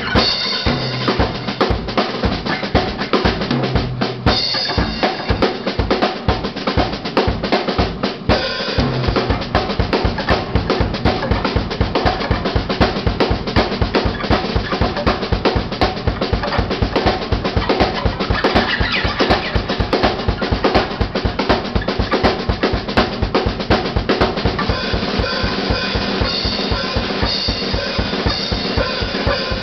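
Rock band playing live: a drum kit drives the beat under electric guitars and bass guitar. About eight seconds in, the kick drum changes to a fast, even pulse.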